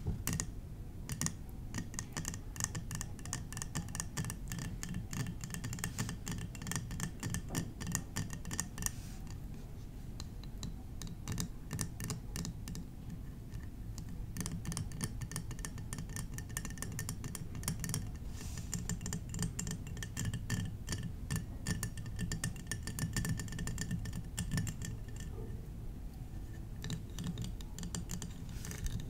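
Fast, continuous tapping on glass bottles, each tap with a short high ring, sparser for a few seconds in the middle.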